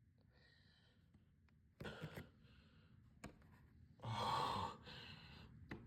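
A person's breathy gasps building up to a sneeze: two short catches of breath about two seconds in, then a longer, louder gasping inhale about four seconds in.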